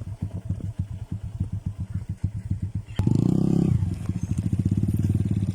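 A small engine running with a fast, even firing beat. About three seconds in, it gets louder and picks up speed as it is throttled up, then holds the higher speed steadily.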